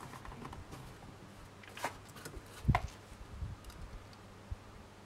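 Small clicks and taps of pliers and jewellery wire being handled on a work surface, with one louder knock about two and a half seconds in.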